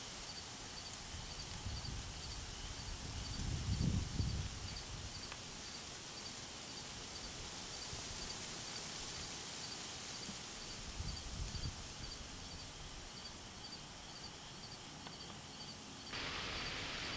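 Outdoor field ambience: a steady hiss with a faint high chirp repeated at a steady pace, and two brief low rumbles. The hiss gets louder near the end.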